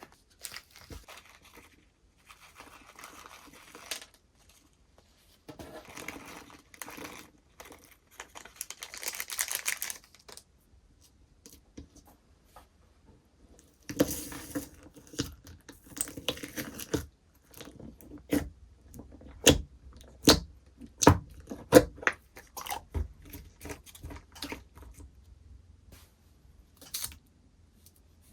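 Slime being played with by hand: soft stretching and squishing at first, then, about halfway through, a long run of sharp crackles and pops.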